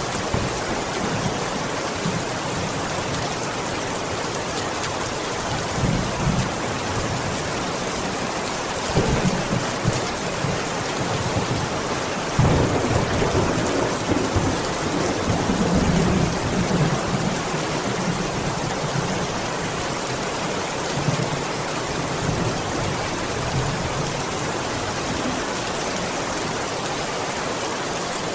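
Heavy rain falling against a window in a steady hiss, with low rolling thunder several times; the longest and loudest rumble comes about midway.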